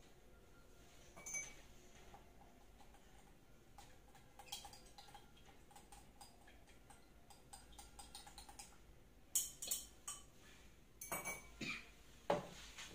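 Small glass beakers and a metal spatula lightly clinking and tapping against each other and the bench while salicylic acid powder is scooped and weighed, with a few louder knocks near the end.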